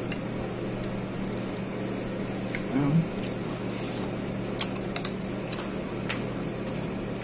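Eating sounds over a steady low hum: soft chewing, a short hum of the voice about three seconds in, and a few sharp clicks of metal chopsticks against the sauce bowl and food container in the second half.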